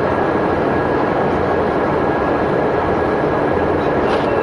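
Steady engine and road noise heard inside a coach travelling at speed on a motorway.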